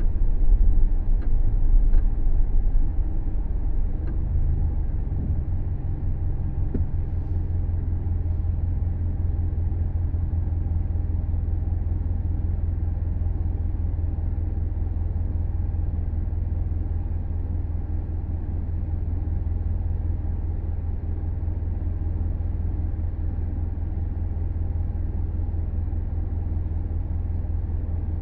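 Subaru Levorg on the move: a steady low rumble, a little louder in the first few seconds and then even, recorded as the car's abnormal driving noise.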